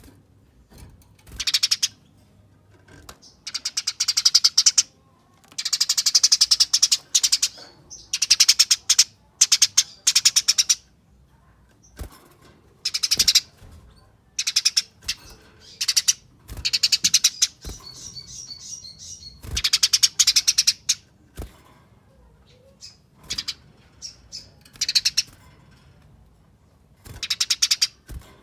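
Eurasian tree sparrow giving its fast, tightly packed 'fighting' chatter in repeated bursts of about a second each, separated by short pauses. It is the aggressive call used as a lure to set off other sparrows.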